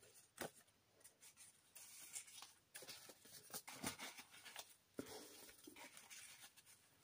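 Faint rustling and soft taps of paper pages being turned and handled in a handmade junk journal, in a string of short bursts.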